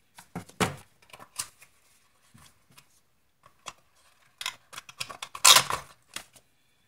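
Hands handling parts and packaging on a workbench: a string of light clicks, taps and rustles of plastic bags and paper, with one louder rustle about five and a half seconds in.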